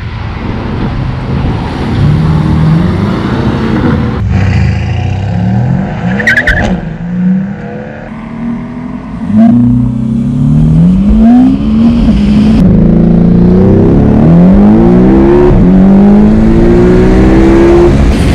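Sports car engine accelerating hard on a race track, its note climbing and dropping back at each upshift through several gears. It is louder from about halfway through.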